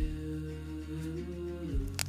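Soft background music of long held notes over a steady bass; the notes change near the end.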